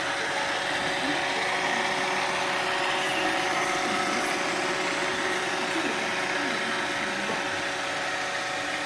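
iRobot Roomba 655 robot vacuum running, its vacuum motor and brushes giving a steady whir with a constant whine as it makes its way back to its charging dock.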